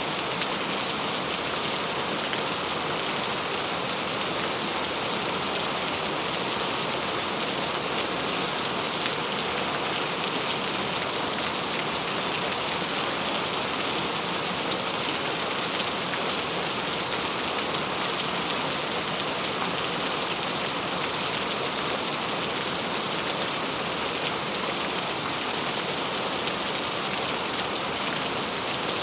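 Steady rain falling on a surface, an even hiss dotted with fine drop patter.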